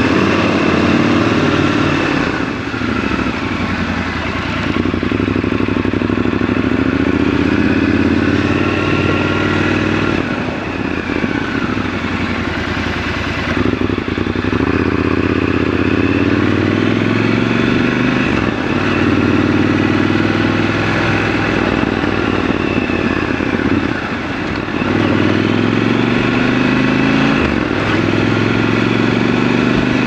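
Triumph Scrambler 1200 XC's parallel-twin engine running under way, rising in pitch as it accelerates and dropping back at each gear change, several times over.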